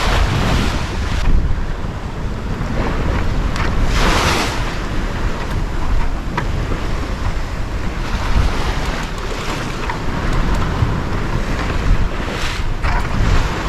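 Wind buffeting the microphone over the rush of sea water along a sailing yacht's hull, a steady loud noise with a heavy low rumble. The water noise swells louder about four seconds in and again near the end, as waves pass.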